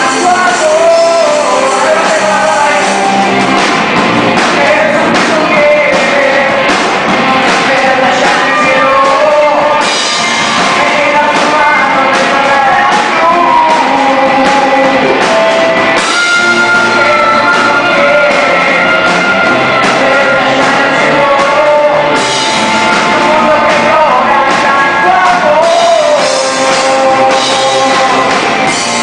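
Loud live rock music with a singing voice.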